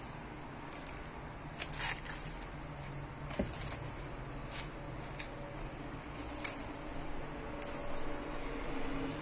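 Plastic cling film crinkling in scattered short bursts as a hand handles and presses it down over a bowl, over a low steady hum.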